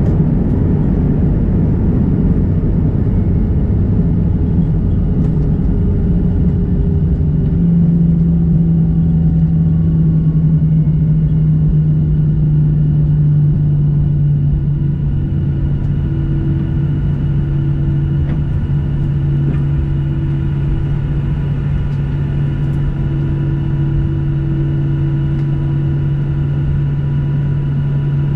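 Boeing 737-800 heard from inside the cabin during the landing roll-out, its CFM56 engines and tyres on the runway. A heavy rumble eases, and a steady low engine hum comes through about a third of the way in. Higher whines join about halfway as the noise drops a little.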